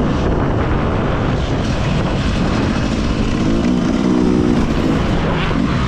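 Yamaha motocross bike engine running hard as it is ridden round a dirt track, its pitch climbing a few seconds in as the throttle opens, with wind rushing over the on-bike camera.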